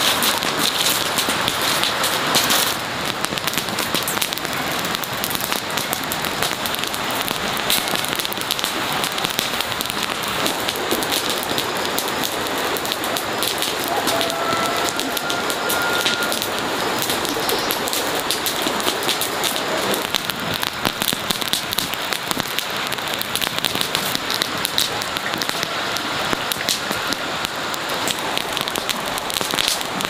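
Dry straw and grass burning, a dense, steady crackling made of many fast little pops.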